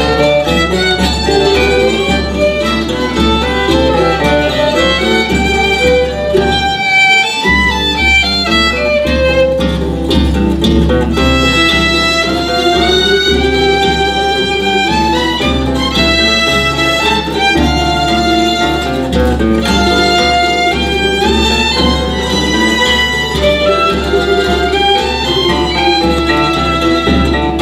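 Azorean rancho de Natal folk ensemble playing, with violins and plucked guitars over a steady low bass-drum beat. The drum drops out briefly about seven seconds in.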